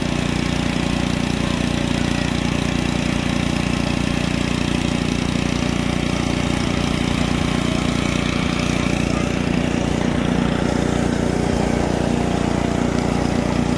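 Gas-powered pressure washer engine running steadily, with a steady hiss above it.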